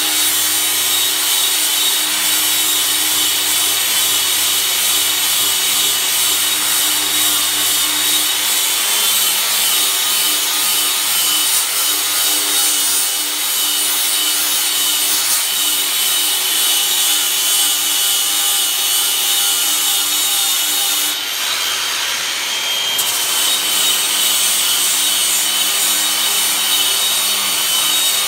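Angle grinder with a carving disc grinding into oak: a steady motor whine over a continuous rasping of wood being cut away.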